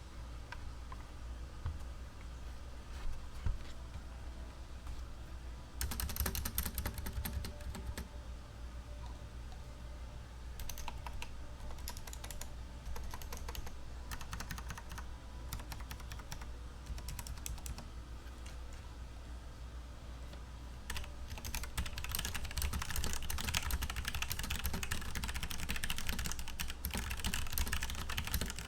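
Typing on a Logitech G Pro mechanical keyboard with Romer-G tactile switches. There are only scattered keystrokes at first, then short bursts of clicks, and fast, dense typing over the last quarter.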